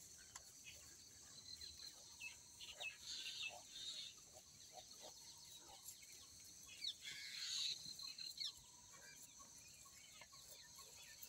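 Faint outdoor ambience of birds calling, with many short chirps and clucks scattered throughout over a steady high hiss.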